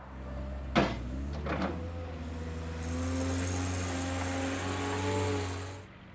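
Bobcat S175 skid-steer loader's diesel engine running steadily, heard close up, with two sharp knocks in the first two seconds. It gets louder about three seconds in, then cuts off suddenly near the end.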